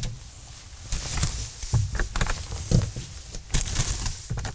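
Irregular knocks, clunks and rustling of gear being handled and packed into the load bed of a pickup truck, starting about a second in.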